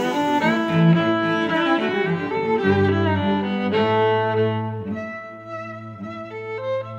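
Background music played on bowed strings, sustained notes in a slow melody, softer in the second half.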